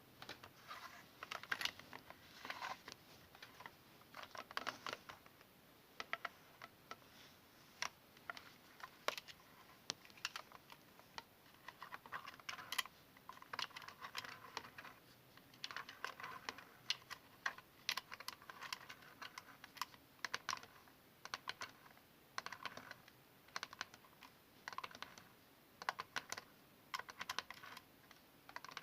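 Close-up fingernail tapping and scratching on an old camera: quick, irregular clicks in clusters, with short scratchy strokes between them.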